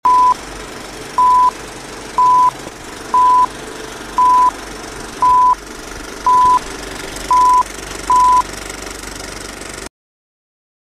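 Film-leader countdown sound effect: nine short, steady high beeps about once a second over a steady background hiss, cutting off about ten seconds in.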